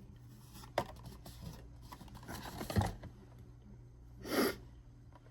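Box and packaging being handled during an unboxing: a sharp click about a second in, a dull knock near the middle, and a short scraping rustle near the end.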